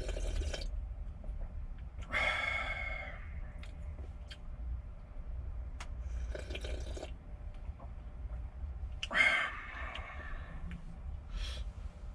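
Ramen broth being slurped and gulped straight from a small metal pot, in short noisy bursts, with two louder breathy sounds about two and nine seconds in. A steady low hum runs underneath.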